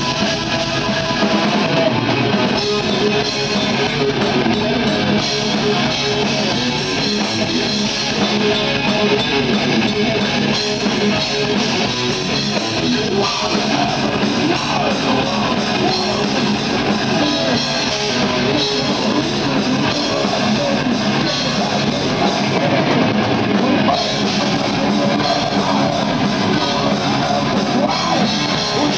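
Heavy metal band playing live at full volume: distorted electric guitar, bass guitar and drum kit.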